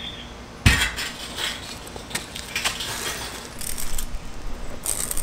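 A heavy metal basketball hoop post set down on a concrete driveway with one sharp thud a little over half a second in, followed by scattered metallic clinks and knocks as it is handled and positioned.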